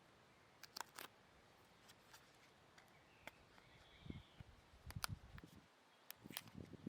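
Faint clicks and taps of the flashlight's packaging being handled and opened, with a few low thumps of handling in the second half.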